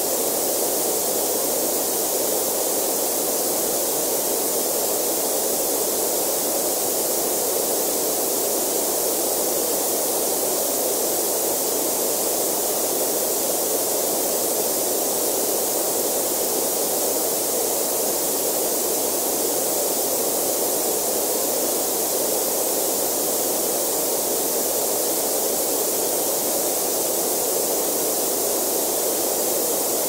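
Steady computer-generated coloured noise from a noise generator app: 'platinum' noise with the green band pushed all the way up. An even hiss, strongest in a low-middle band and in the highest treble.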